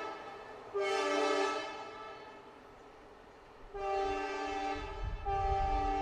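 Horn of twin ALCo WDG3A diesel locomotives running light, sounded in three blasts: a short one about a second in, a longer one near four seconds, and another starting just after five seconds that is still going at the end. A low diesel engine rumble grows under the later blasts as the locomotives draw closer.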